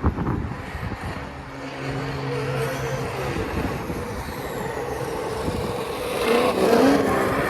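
Traxxas Slash 2WD RC truck's On-Board Audio speaker playing a simulated engine sound that follows the throttle: a steady low note for about two seconds, then rising in pitch and loudness near the end as the truck speeds up. A sharp knock right at the start.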